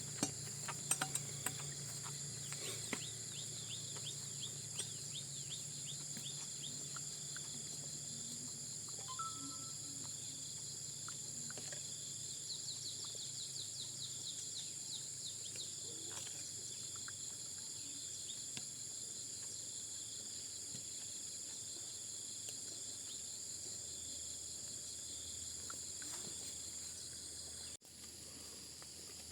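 Steady, high-pitched chorus of insects trilling without pause, with runs of rapid repeated chirps about three seconds in and again around thirteen seconds. A few faint knocks come early on, and the level drops slightly near the end.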